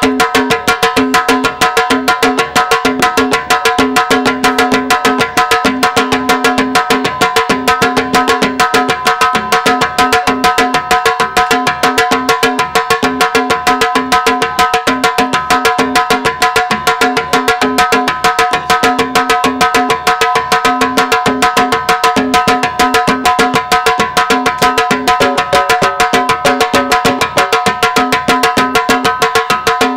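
Percussion music: drums beating a fast, even rhythm over a steady held drone.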